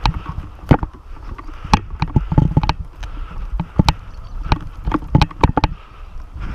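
Airsoft gun firing irregular single shots, sharp snaps spaced a fraction of a second to a second apart, over a low rumble of wind and handling on the microphone.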